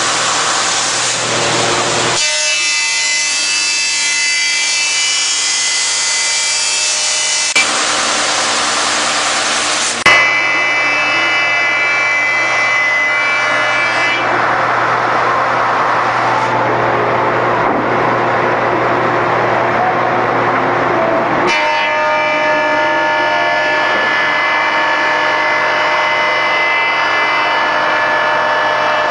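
Wide belt sander running while wood panels feed through on its conveyor: a steady machine hum with hiss and several steady tones. The sound changes abruptly a few times, and there is a sharp click about ten seconds in.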